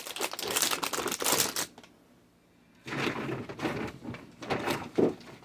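Crinkling and rustling of packaging and small items being handled in two spells with a short pause between, and a knock about five seconds in.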